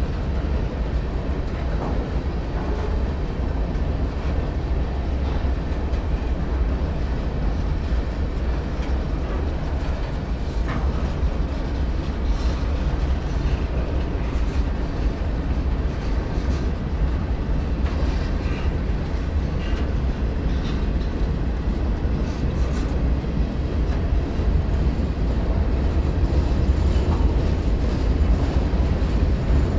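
Union Pacific manifest freight train rolling past with a steady rumble of wheels on rail and a few faint clicks, getting slightly louder near the end.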